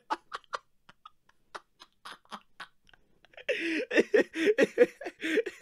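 A man laughing helplessly: short breathy gasps and near-silent spasms at first, then from about three and a half seconds a loud, quick run of ha-ha laughter.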